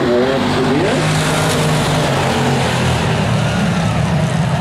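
A pack of hobby stock race cars accelerating together on a green-flag restart, their engines running hard, growing louder and brighter from about a second in as the field passes.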